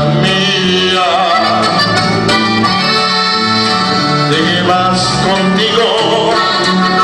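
Live norteño music: a button accordion plays the melody over a strummed guitar and an electric bass line.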